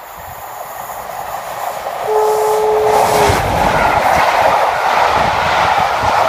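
Diesel-hauled charter train approaching and growing louder; about two seconds in, the locomotive's horn sounds one steady note for about a second. The train then passes close at speed, with loud wheel and rail noise from the coaches.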